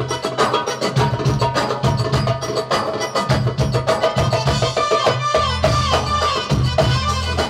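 Live Egyptian band playing belly-dance music: fast, dense percussion strokes under a wavering melody line, with a deep sustained bass note coming in about five seconds in.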